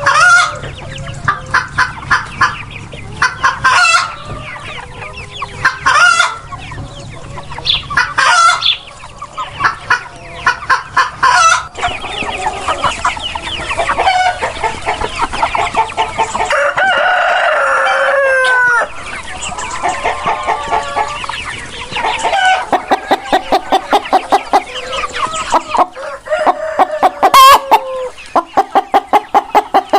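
Chickens clucking in quick runs of short notes, with a rooster crowing partway through: one long held call that ends in a falling note.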